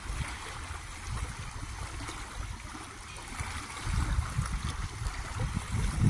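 Small waves lapping on a lake shore, an even watery hiss, with a low irregular rumble that swells from about four seconds in.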